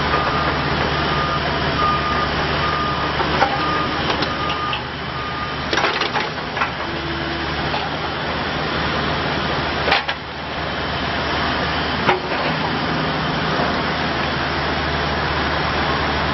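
Bobcat E42 mini excavator's diesel engine running steadily. A short electronic beep repeats about seven times over the first five seconds, and a few sharp metallic clanks come later.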